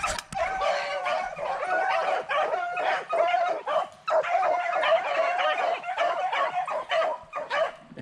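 A pack of beagles baying together without a break as they run a rabbit's track, several overlapping voices at once.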